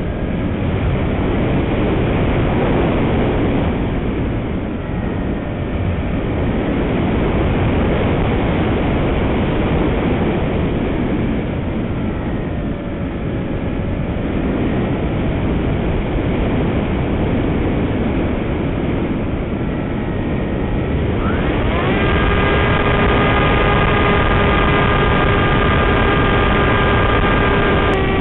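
Wind rushing over the onboard camera of a small electric RC plane in flight, with the electric motor and propeller whining faintly underneath, the pitch drifting up and down. About 22 seconds in, the motor winds up and holds a steady, higher whine.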